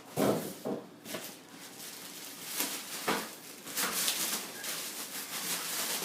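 Irregular rustling and light knocking from handling a computer case and its packaging, with a louder burst just after the start.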